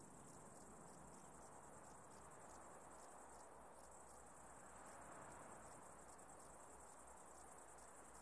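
Faint chirring of insects, crickets by the sound: a high, steady trill pulsing several times a second.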